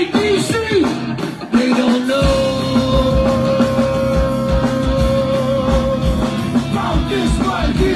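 A live go-go band plays with drum kit, congas, bass and guitar. The drums drop out briefly, then come back in about two seconds in under a long held note that lasts about four seconds.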